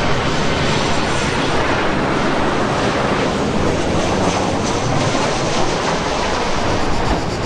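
Boeing 737 airliner's jet engines on landing approach: steady, loud engine noise.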